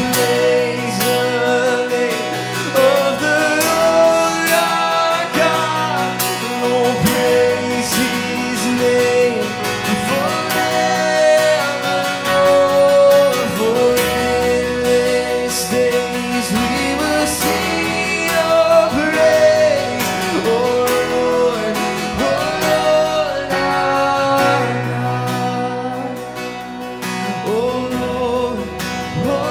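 Singing accompanied by strummed acoustic guitar: a song in slow, held phrases.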